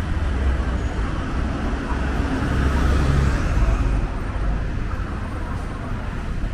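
Road traffic on a city street: vehicles running past with a steady low engine rumble, one passing more loudly about halfway through.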